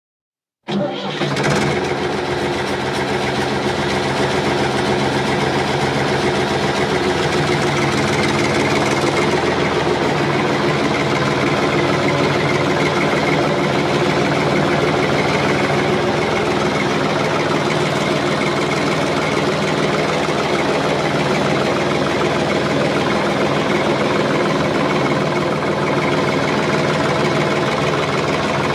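A farm machine's engine running steadily at constant speed. It cuts in suddenly about a second in, after silence.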